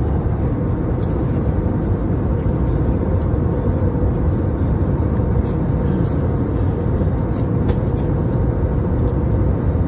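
Steady cabin noise of a passenger jet: an even low rumble of engines and rushing air, with a faint steady hum, and a few faint clicks now and then.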